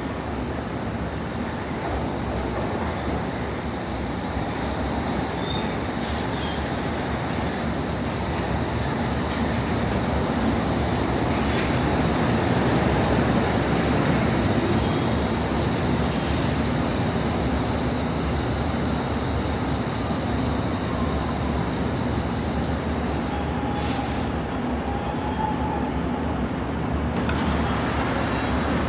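London Underground train running along the track with a steady rumble that builds through the first half. Faint high wheel squeals come in twice, along with a few sharp clicks.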